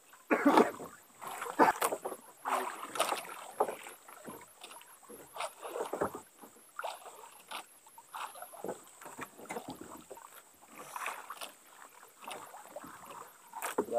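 Water lapping and splashing against the hull of a small wooden boat in irregular bursts.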